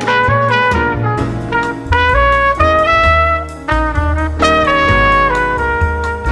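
Music: a jazz recording with a brass lead playing a melody over bass notes, played back on a hi-fi system.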